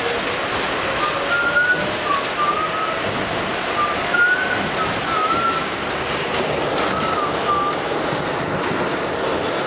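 R68 subway car running through the tunnel as it pulls away, with a steady rumble of wheels on rail and a motor whine rising in pitch during the first few seconds. Several short wavering high squeals come and go.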